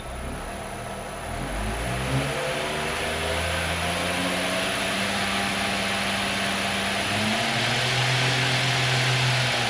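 B.A. Shredder 2x72 belt grinder running in reverse on a VFD: the motor's hum climbs in pitch and loudness over the first two or three seconds as it spins up, then runs steadily with a hiss from the belt.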